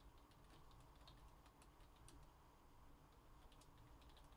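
Faint, irregular clicks of typing on a computer keyboard over a low room hum, near silence otherwise.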